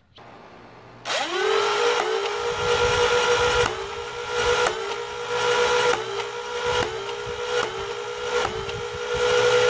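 Dual-Stryfe Nerf blaster's four Rhino flywheel motors spinning up to a steady whine, then a run of about eight semi-automatic shots, roughly one a second. Each shot is a sharp snap with a brief dip in the motor pitch as a pair of darts is pushed through the serrated flywheels.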